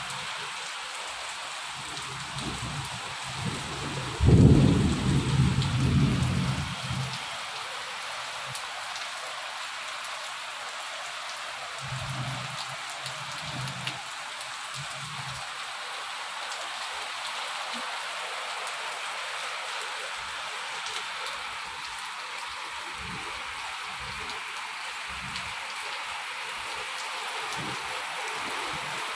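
Steady hiss of heavy rain falling on a tiled courtyard and garden plants. About four seconds in a loud low rumble sets in suddenly and dies away over a few seconds, with fainter low rumbles later.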